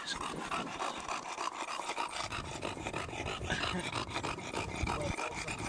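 A dog panting close to the microphone, in quick repeated breaths. A low rumble joins about two seconds in.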